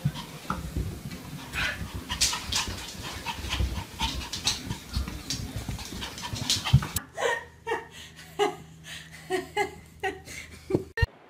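A dog panting in quick rhythmic breaths; after a cut about seven seconds in, a series of short, high dog whines about twice a second.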